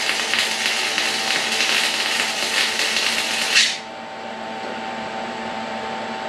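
Electric arc welding on a steel frame joint: the arc's steady crackling hiss runs for several seconds and stops abruptly a little before four seconds in, leaving a steady machine hum.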